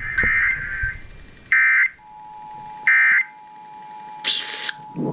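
Emergency Alert System broadcast tones: short bursts of the digital SAME header data tones warbling near 1.5–2 kHz come three times. From about two seconds in, the steady EAS two-tone attention signal (853 and 960 Hz) sounds under them, with a brief burst of static near the end.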